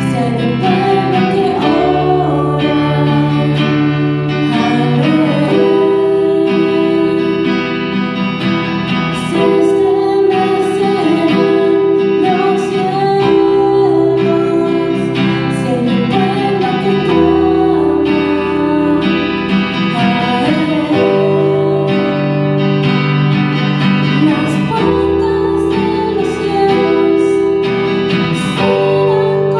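Live band music: a woman singing into a microphone over electronic keyboard chords and bass with guitar accompaniment, playing continuously.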